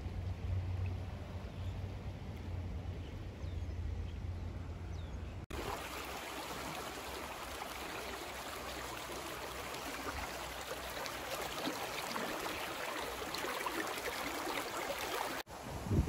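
A low rumble for about the first five seconds. Then, after an abrupt cut, the steady rush of a shallow mountain stream running over rocks.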